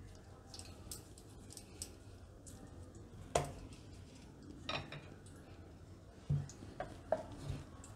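Light taps and about five sharper knocks of hands and a wooden rolling pin against a wooden chopping board as a ball of dough is pressed flat and rolled out. The knocks start about three seconds in, and the first is the loudest.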